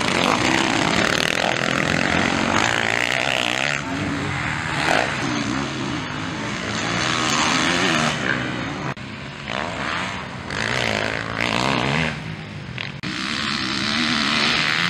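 Motocross dirt bikes racing past, their engines revving up and down through the gears, several bikes overlapping as they pass.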